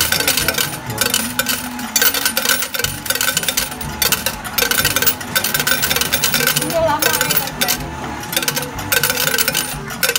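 A coin change machine pays out coins in a rapid metallic clatter into its metal tray. The coins come in several runs with brief pauses and stop suddenly near the end: a 1,000 NT dollar bill being changed into coins.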